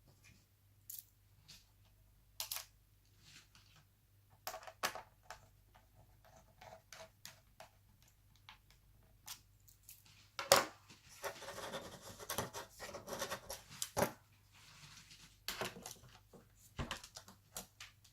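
Hands working on a laptop during reassembly: scattered small clicks and taps of screws, screwdriver and plastic parts, with a few seconds of scraping and rustling about ten seconds in.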